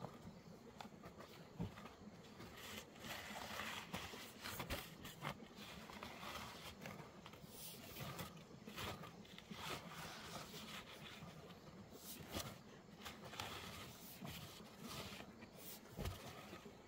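Wooden-handled hand hoes chopping into and scraping through loose soil, a run of irregular strokes from two people working together.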